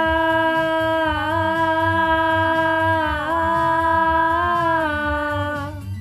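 A girl's singing voice holding one long note, the final sung word of the chorus line, over a backing track with a steady low beat. The note dips slightly in pitch twice and ends just before the close.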